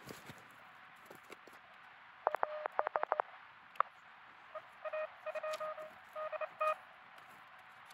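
Morse code (CW) tones from a truSDX QRP transceiver over a steady hiss of band noise: a quick run of short beeps a couple of seconds in, then single-pitch dots and dashes from about halfway through.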